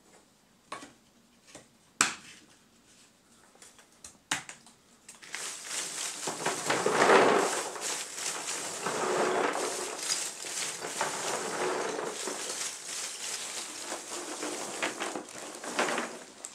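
A few sharp chops of a blade cutting lump charcoal on a wooden block, then, from about five seconds in, a continuous clatter of charcoal pieces being raked together and scooped up by hand.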